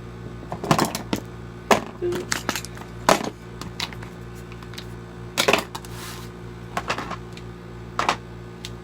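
Small hand tools (magnetic screwdrivers, a level, a box cutter) clicking and clattering as they are set one by one into a small toolbox, in a series of irregular sharp knocks over a steady background hum.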